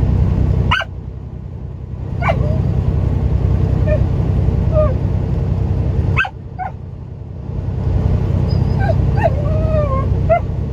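A dog whining and yipping with excitement: a few sharp high yips and wavering, rising and falling whines, over the steady low rumble of a truck's engine.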